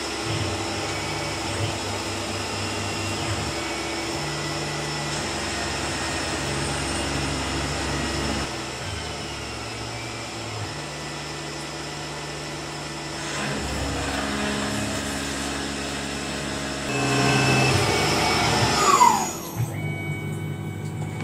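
Tormach PCNC personal CNC mill with its end mill cutting a metal plate under flood coolant: a steady machining and spray noise whose low hum steps up and down as the cut changes. Near the end it peaks, then the spindle winds down with a falling whine and the noise drops away.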